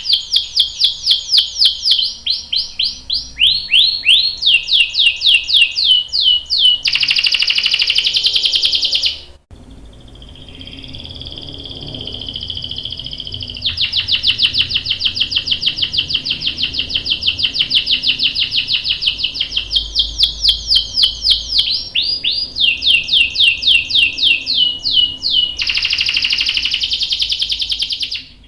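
Canary singing a long rolling song: fast runs of repeated sweeping chirps, about five a second, broken by buzzy trills. Near the middle the song cuts out abruptly, comes back as a softer passage of held whistled notes, and then the fast chirping runs resume.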